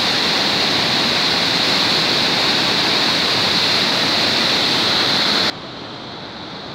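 Whitewater of a waterfall rapid rushing down a narrow channel, a loud steady rush of water. About five and a half seconds in it drops suddenly to a much quieter, more distant rush.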